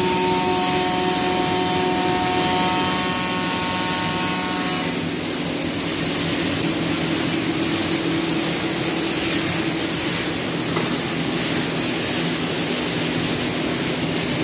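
Northwood CNC stone router's spindle running with its water-cooled tool working a granite or quartz slab: a steady hiss of water spray and grinding under a whine. Several higher whining tones drop out about five seconds in, leaving a lower hum.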